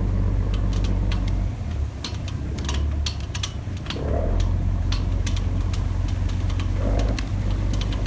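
Large fishing boat's diesel engine running with a deep steady beat. It eases off about a second and a half in and picks up again a few seconds later, with sharp ticks over it.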